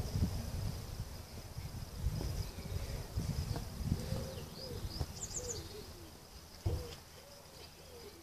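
Outdoor garden ambience: wind buffeting the microphone with low rumbles that die down, a bird chirping briefly about halfway through, and a single thump later on.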